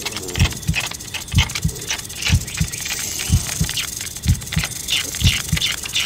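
Heartbeat sound effect, a double thump about once a second, mixed with a wildlife recording that adds many short, irregular higher-pitched sounds on top.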